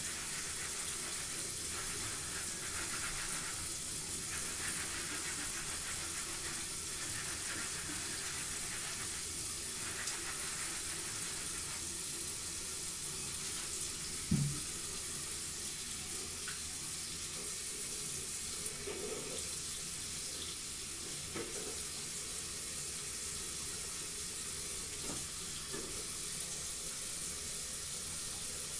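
Bathroom sink tap running steadily, with one brief low thump about halfway through.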